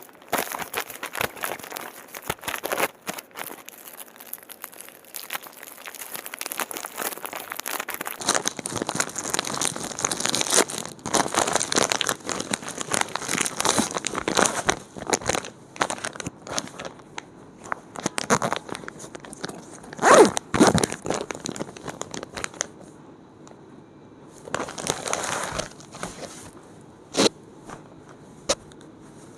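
Plastic parcel packaging being torn open and crinkled by hand: a long run of rustling, crackling and tearing that thins out after about 22 seconds, with a short burst of rustling and a couple of sharp crackles near the end.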